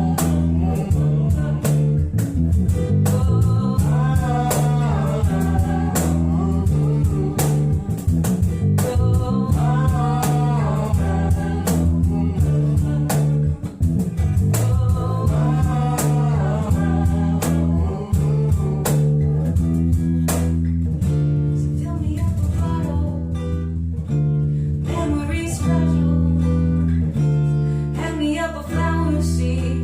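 Acoustic band performance: strummed acoustic guitar with a singing voice over it.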